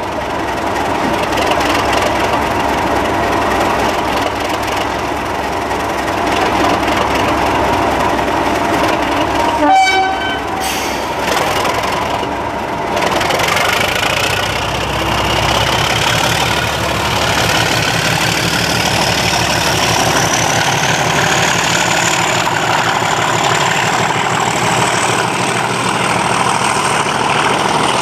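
Class 37 diesel locomotive's English Electric V12 engine working as it moves the sleeper train out. A brief loud sound comes about ten seconds in, then the turbocharger whine rises steadily in pitch as the engine takes load, with the coaches rolling past.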